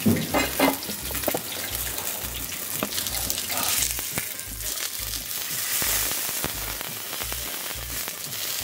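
Marinated pomfret sizzling as it shallow-fries in hot oil in a nonstick pan, with the scrape and tap of a steel spatula pressing and turning it. Two loud metallic knocks come right at the start.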